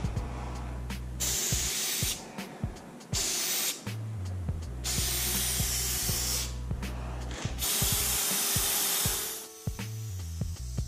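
Aerosol spray paint can spraying in several bursts of hiss, each starting and stopping sharply, the longest lasting a second or more.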